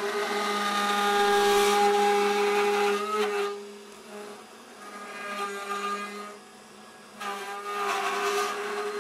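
CNC router spindle running at a steady pitch while its bit cuts into a hard wood guitar body. The cutting is loud for the first three seconds, eases off through the middle, and grows loud again about seven seconds in.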